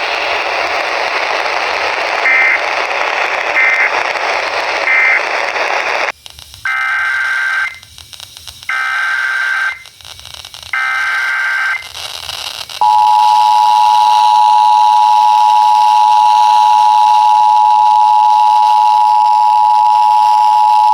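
Emergency Alert System broadcast heard over radio. First comes a hiss of radio static with three short high beeps. About six seconds in, three one-second bursts of the screeching SAME data header follow, then the steady two-tone EAS attention signal, which runs on and heralds a severe thunderstorm warning.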